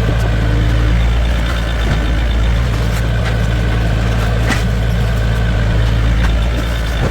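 A heavy engine running steadily at constant speed, with a deep even hum and a few faint knocks.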